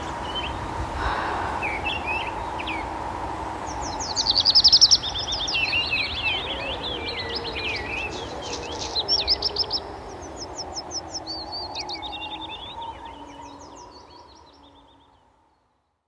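Wild songbirds singing: several phrases of rapid chirping trills, the loudest about four seconds in, over a steady outdoor hiss and faint hum, all fading out near the end.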